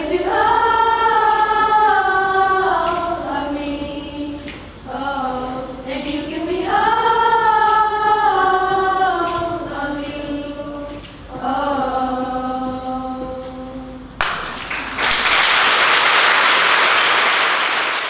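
A group of children singing together in long held notes, three phrases that end about fourteen seconds in, followed at once by audience applause.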